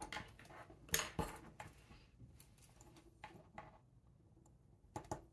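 Faint small metallic clicks and taps as watch tools are handled and a fine screwdriver works at the links of a metal expansion watch bracelet. The sharpest clicks come about a second in and again as a pair near the end.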